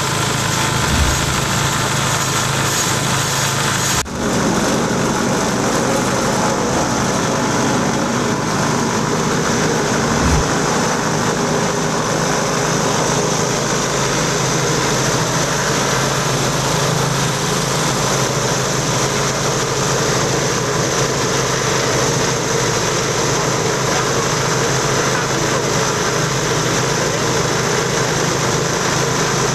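Engine-driven multifunction grinding mill (crusher for husk, corn cobs and dry leaves) running, a loud steady machine noise with a low hum under it.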